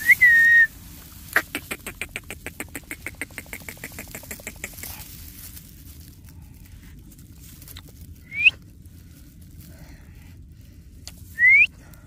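Alexandrine parakeets calling: a loud shrill screech at the start, then a fast rattling run of short notes, about ten a second, lasting some three seconds, and later two short squawks that rise in pitch.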